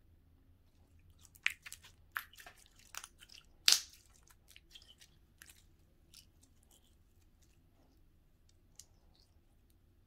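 Gooey Nickelodeon slime being squished and stretched in the hands, making scattered wet clicks and pops, the loudest about four seconds in, then fewer in the second half.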